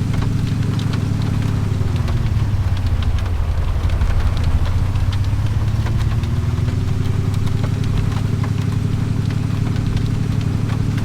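A vehicle engine running steadily. Its note drops about two seconds in as it slows, then climbs back up a few seconds later as it picks up speed again.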